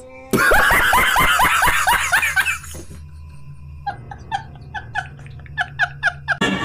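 A man laughing hard: a loud run of quick, falling 'ha' sounds, then after a short break a string of shorter, higher, squeaky laughs at about four a second.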